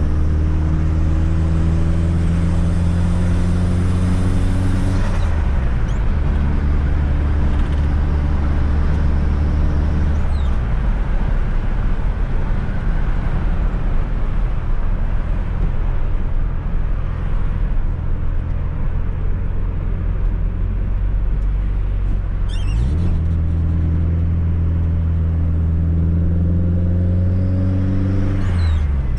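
Fiat Coupe 2.0 16V Turbo's four-cylinder engine pulling through the gears, its note rising under acceleration and dropping at gear changes about 5 s in and near the end. In the middle the engine note fades into steady road noise for a while before climbing again.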